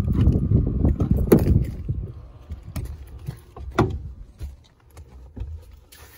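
Pickup truck rear door being unlatched and pulled open: a low rumble for the first two seconds, a sharp latch click about a second in, then a few lighter clicks and knocks as the door swings open.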